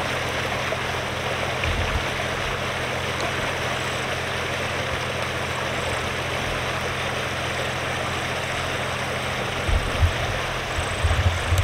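A four-wheel drive's engine idling with a steady low hum under an even rushing noise, with a few low rumbles near the end.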